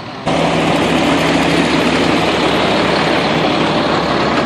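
Loud, steady engine noise with a low hum that cuts in suddenly just after the start.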